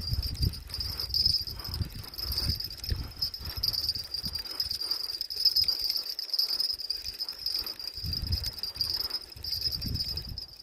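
Night insects trilling in a steady high-pitched chorus, with an irregular low rumbling underneath.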